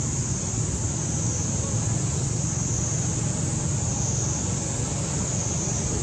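Steady outdoor background noise: a constant low rumble under an even high hiss, with no monkey calls.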